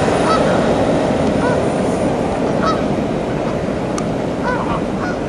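Wren model jet turbine of a radio-controlled Bluebird boat running on the water, a steady jet rush with a faint high whine that fades out about two seconds in. Geese honk about five times over it.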